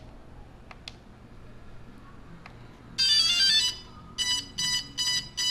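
DJI Phantom 2 quadcopter powering up: after a few faint clicks, its motors play a quick rising run of beeping notes, then four short beeps, the start-up signal that the drone has come on.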